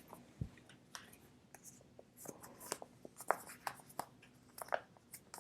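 Plastic card sleeves and photocards handled at close range: a string of short scratchy ticks and rustles as a card is worked into a Dragon Shield sleeve, with a soft knock about half a second in.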